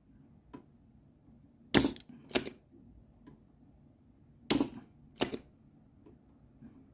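Spring-loaded desoldering pump (solder sucker) clicking as its plunger is cocked and fired to suck molten solder off connector pins: two pairs of sharp snaps, each pair about half a second apart.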